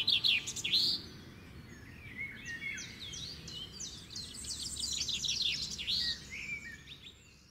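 Several birds chirping and singing in quick runs of short calls and sweeping notes, over a faint low background hum; the calls fade out near the end.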